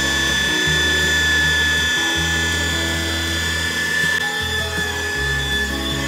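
Makita electric angle polisher running steadily with a high whine as its pad buffs an aluminium truck fuel tank. Background music with a bassline plays along with it.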